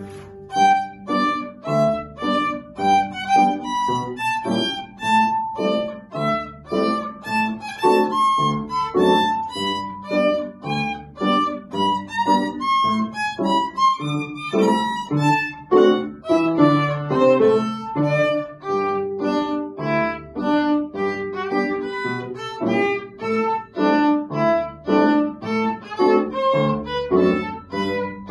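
A bowed violin playing a melody of many short notes over upright piano accompaniment.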